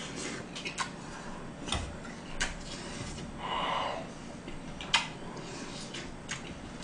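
Close-up eating sounds: a man chewing a mouthful of gomtang and rice, with scattered sharp clicks of a metal spoon and chopsticks, and a brief mouth sound about three and a half seconds in.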